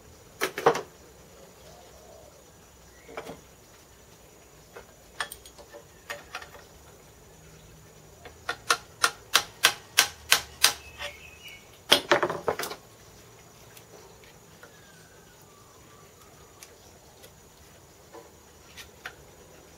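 Light metal-on-metal taps on the milling machine's headstand guide piece, knocking it into alignment. A run of about ten evenly spaced taps, roughly four a second, comes in the middle, with shorter clusters before and after and a few faint taps near the end.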